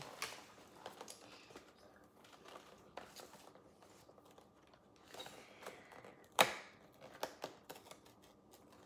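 Small plastic toy packaging being handled and opened: scattered light clicks and rustling, with one sharper click about six and a half seconds in.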